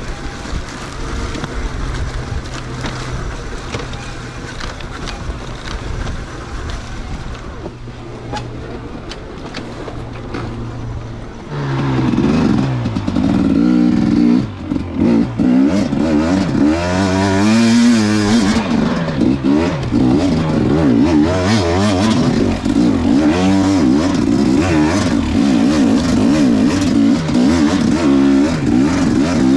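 KTM dirt bike engine running at a low, steady pace, then about a third of the way in the throttle opens and it revs loudly, the pitch climbing and dropping again and again as the rider works the throttle.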